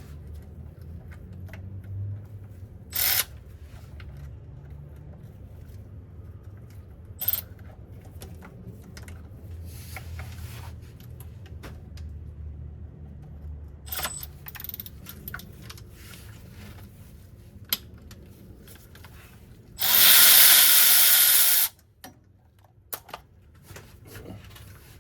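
A power tool runs loud for about two seconds near the end, spinning out one of the starter's mounting bolts. Before it come scattered clicks and knocks of hand tools over a steady low hum.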